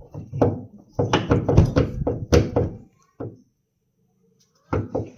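A bolted car body part being tugged and rocked by hand: a rapid string of knocks and thunks for about three seconds, then another short run near the end. The part will not come free because one more bolt below is still holding it.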